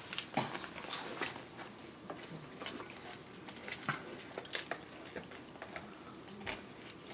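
Eating and table handling: chewing, a metal fork clicking in a plastic takeout container, and aluminium foil crinkling as it is handled. These come as a scatter of short clicks and rustles.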